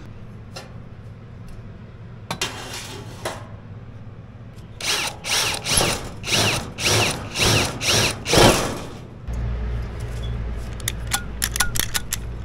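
Craftsman cordless drill run in a series of short trigger bursts, about two a second, each spinning up and back down, drilling the aluminium stove panel for rivets. After the bursts come a steady low hum and a few light clicks.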